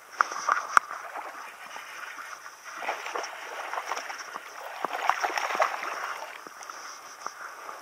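Hooked largemouth bass thrashing and splashing at the water's surface as it is reeled in, in choppy bursts of splashing, loudest in the first second and again in the middle.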